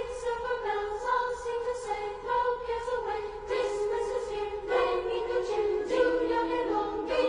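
Background music of a choir singing slow, held notes.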